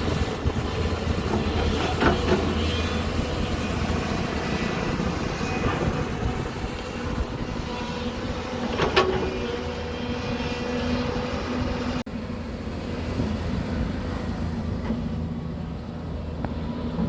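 Hyundai SMART 215L excavator running steadily while digging, with a sharp knock about two seconds in and a louder one near nine seconds, followed by a brief falling squeal. The sound changes abruptly about twelve seconds in.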